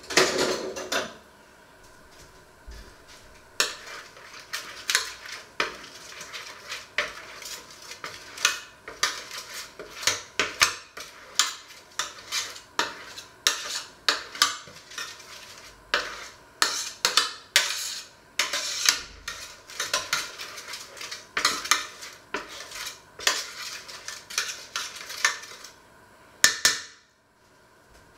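Metal baking tray being greased by hand with butter: a clatter at the start, then repeated short scrapes and knocks, several a second, as the tray is rubbed and shifts on the wooden worktop, ending with a louder knock shortly before the end.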